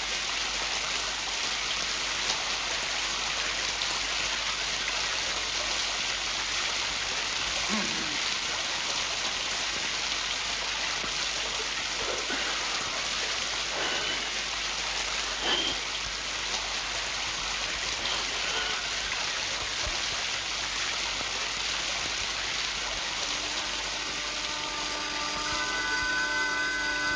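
Steady rush of a waterfall pouring into a pool. Near the end, music with held wind-instrument notes comes in over it.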